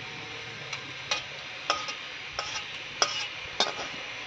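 Metal spatula scraping and knocking against a metal kadai as fried prawns are pushed out into a pot: about five sharp scrapes a little over half a second apart, over a steady hiss.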